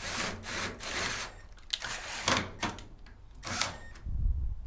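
Power drill with a 5/16-inch bit boring out a hole in a power-supply box cover, grinding in short rasping bursts, then running more steadily near the end.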